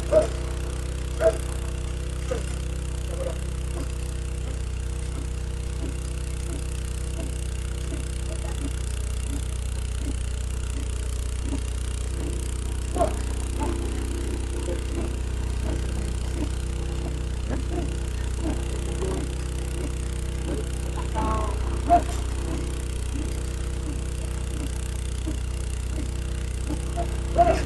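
A borehole drilling rig's engine running steadily, with light knocks and clanks from the rig now and then.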